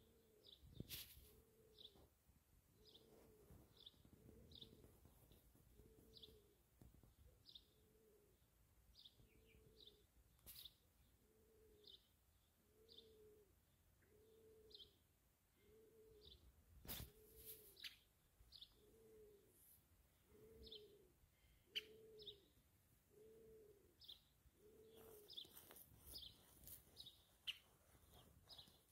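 Faint birdsong: a low cooing call repeated evenly about once a second, stopping near the end, with short high chirps from another bird at a similar pace. A few soft clicks also occur.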